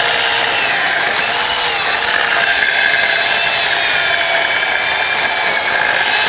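Sun Joe 10-inch electric chainsaw's 8-amp motor running under load as its chain cuts through a log, a steady whine that wavers and dips in pitch as the chain bites into the wood.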